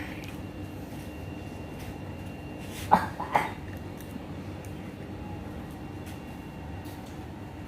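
An elderly man coughing twice in quick succession, about three seconds in.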